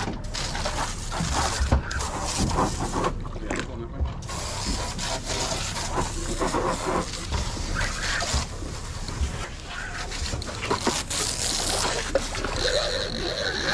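Fishing reel being cranked as a hooked fish is reeled in, a mechanical clicking and whirring of the reel's gears.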